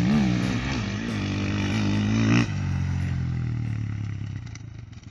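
Enduro dirt bike engine revving up and down as the rider brakes and turns through a tight taped course. About halfway through the sound changes abruptly, and the engine note then holds steadier and fades away.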